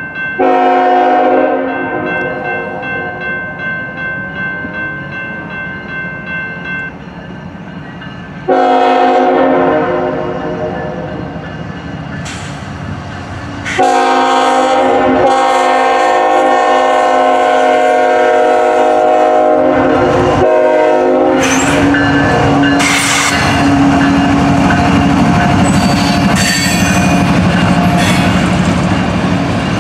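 CSX ET44AH diesel-electric locomotive's multi-chime air horn blowing three long blasts for a grade crossing as the freight approaches. After that the locomotive passes close by, and the freight cars' wheels clatter over the rail joints.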